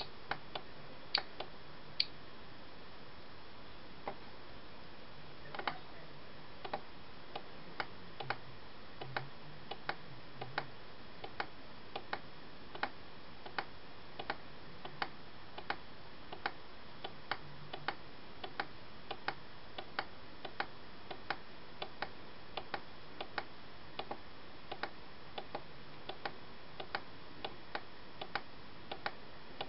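A steady run of light, sharp clicks, about three every two seconds, over a faint background hiss.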